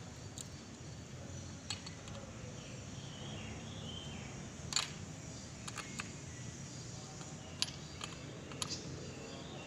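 Scattered sharp metallic clicks and small clanks, the loudest about halfway through, as hands work on the bar and chain of a stopped MS 660-type chainsaw, over a low steady background.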